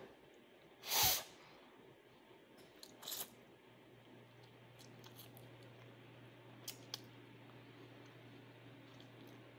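A person eating instant ramen noodles off a fork, with mouth and breath sounds: a short, loud breathy rush about a second in, a softer one around three seconds, and two faint clicks near seven seconds. A faint low hum comes in around four seconds.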